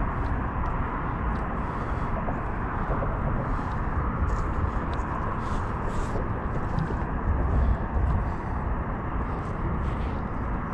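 Steady outdoor background rumble, strongest in the low range and swelling briefly about seven to eight seconds in, with faint small ticks over it.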